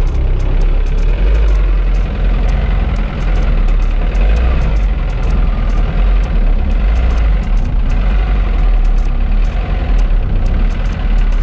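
A vintage car's engine running steadily in first gear, a loud low rumble.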